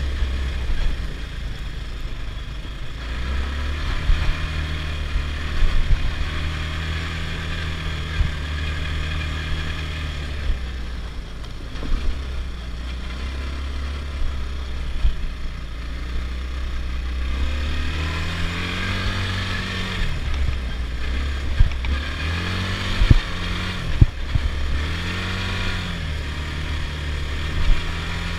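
Adly Hurricane 320 quad's engine running under way, revving up and easing off several times in the second half, with a few sharp knocks from the ride.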